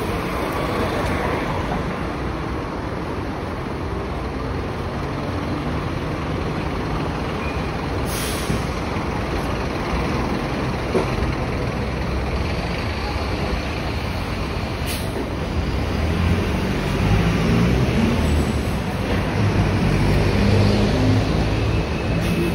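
City street traffic: buses and cars running past, with a low engine rumble that grows louder in the last several seconds and two short hisses about a third and two thirds of the way through.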